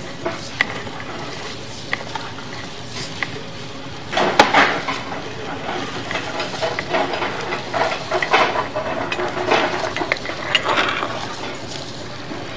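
Sewer inspection camera and its push cable being pulled back out through a drain cleanout: irregular scraping and clattering, a few sharp clicks at first, busier from about four seconds in.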